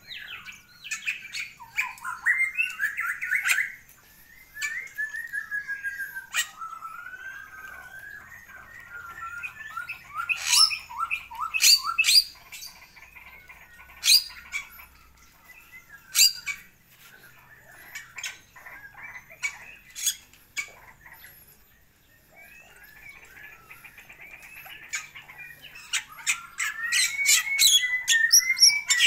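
Bali myna singing: a varied run of warbling, gliding whistles mixed with sharp clicks and harsh squawk-like notes. There is a short lull about two-thirds of the way through and a dense, busy burst near the end.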